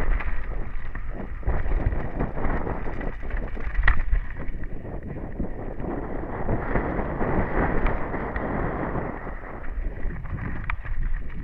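Downhill mountain bike descending a dry dirt trail at speed: tyres on loose dirt and the bike rattling and knocking over bumps, under steady wind buffeting on the microphone.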